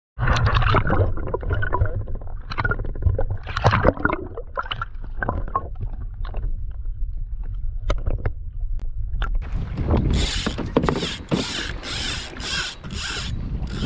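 Sea water sloshing and gurgling around the kayak, heard through a camera dipped at and under the surface, over a steady low rumble of water and wind. Near the end come about seven short rushing bursts in quick, even succession.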